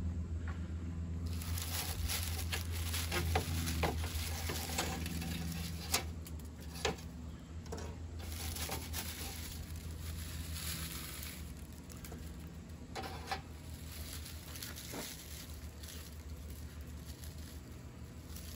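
Dry leaf tinder bundle crinkling and crackling as it is crumpled and shaped in the hands, with many small irregular clicks. A steady low hum runs underneath.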